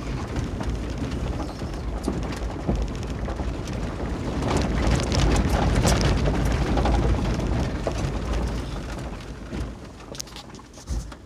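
Tyres crunching and crackling over a loose gravel and rock dirt road, with the low rumble of the 2020 Kia 4x4 driving on it. Loudest midway, easing off near the end.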